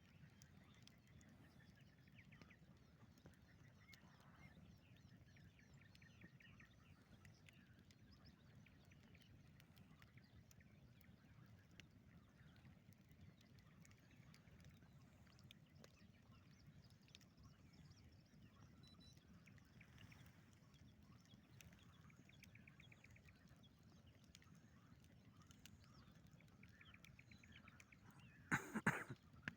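Quiet outdoor nature ambience with a faint low background and short bird trills repeating every few seconds. Near the end a brief, much louder sound cuts in once.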